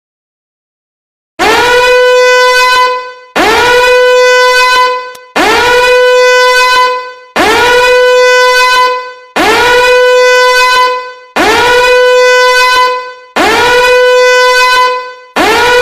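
A loud horn blast, repeated eight times about every two seconds. Each blast scoops up quickly into a held, buzzy note and is identical to the others, like a looped sound effect.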